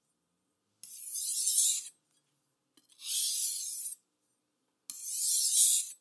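Steel chef's knife blade scraped along a soaked whetstone: three single strokes, about a second each and a couple of seconds apart, with a faint click as the blade meets the stone before each. These are the final single strokes, alternating from one side of the edge to the other.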